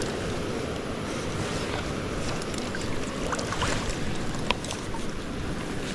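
Steady rush of river water, with a few light ticks near the middle.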